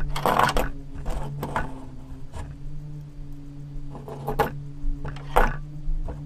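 Plastic Lego bricks of a homemade candy dispenser being handled: a short sliding rattle as its drawer is worked, then several separate sharp plastic clicks and knocks. A steady low hum runs underneath.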